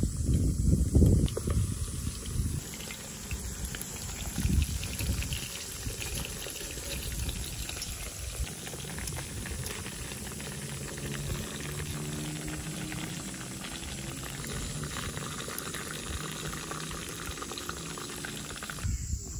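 Battered white fish frying in hot oil in a small cast-iron skillet, the oil sizzling and crackling steadily. There are a few low knocks in the first couple of seconds.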